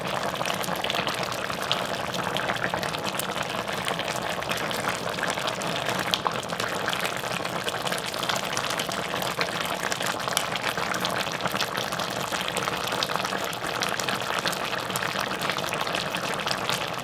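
Soy-sauce braised chicken (jjimdak) bubbling steadily in its pot, a continuous simmer with many small pops of bursting bubbles.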